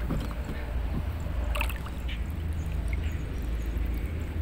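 Shallow water sloshing and splashing as someone wades, over a steady low rumble; a brief sharper splash about a second and a half in.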